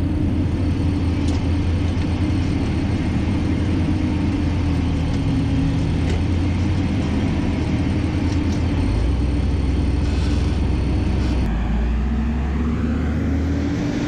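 Forage wagon unloading chopped corn silage into a silo blower, both driven by a tractor's PTO: a loud, steady mechanical drone of the blower fan, beaters and engine with a held hum, as the silage is blown up into the silo.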